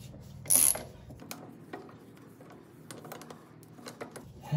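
Socket ratchet clicking in a run of light, quick ticks as it backs a long bolt out of a Farmall 450's cast brake housing, with one short metallic clatter about half a second in.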